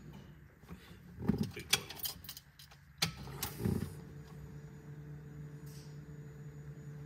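Ignition key being cycled, with the key ring jangling in two bursts about one and three seconds in, over a steady low hum from the electric fuel pump running to prime the new fuel lines. A steady higher whine joins about four seconds in.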